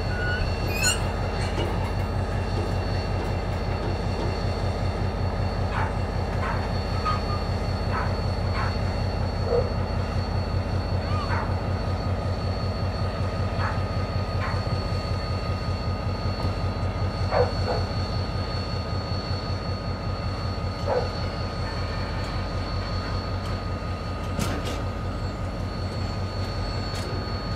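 071 class diesel locomotive's General Motors EMD V12 two-stroke engine running with a steady throbbing beat as it slowly hauls a rake of empty timber wagons, with several short wheel-flange squeals and a few sharp clanks from the wagons.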